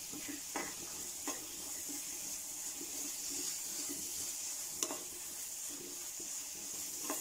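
A steel spoon stirring thick carrot halwa in a non-stick kadai, mixing in cardamom powder, over a steady sizzle from the pan. The spoon knocks sharply against the pan a few times, loudest a little before the five-second mark.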